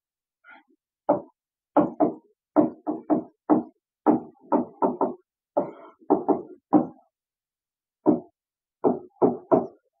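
Stylus tapping and scraping on an interactive touchscreen board during handwriting: about twenty short knocks in uneven clusters, with a pause of about a second near the end.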